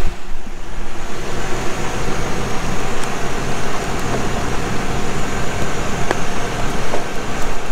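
Steady engine rumble from nearby running farm machinery, with a few faint clicks.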